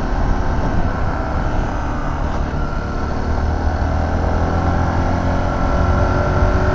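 Zontes T310 single-cylinder motorcycle engine running steadily at cruising speed, under heavy wind rumble on the microphone, getting slightly louder near the end.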